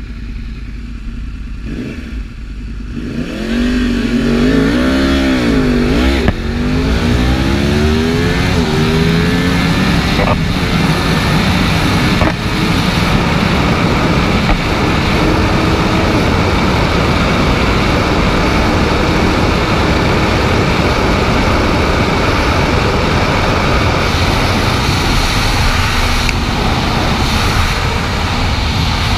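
Yamaha R1 50th Anniversary's crossplane inline-four launching hard about two seconds in, its revs climbing and falling through the first gears with a few quick upshifts, then running steadily at high speed under loud wind rush on the helmet microphone.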